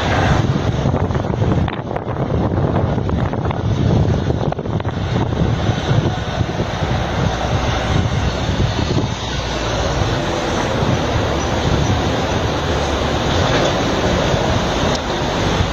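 Blizzard wind gusting and rumbling against the microphone, loud and unbroken.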